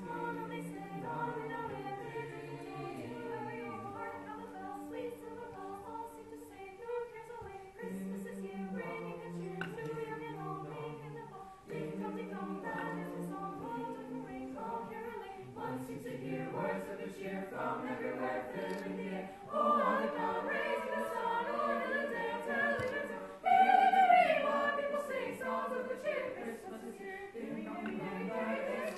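A choir singing in harmony without accompaniment, several voices holding and changing notes together; the singing grows louder about two-thirds of the way through and is loudest a few seconds later.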